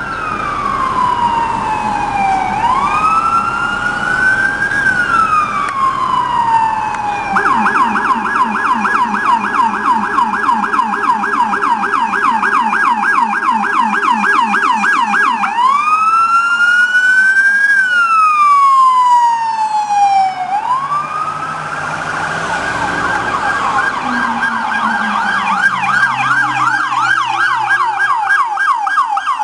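Electronic sirens of a police motorcade, several at once, switching between a slow rising-and-falling wail and a rapid yelp: wail at first, yelp from several seconds in, wail again about midway, then yelp to the end. For a stretch of the first yelp a low-pitched yelp runs underneath, from a Rumbler-type low-frequency siren.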